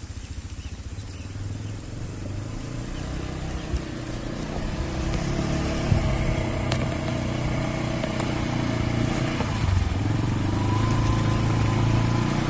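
A motor vehicle's engine running steadily, growing louder over the first several seconds and then holding.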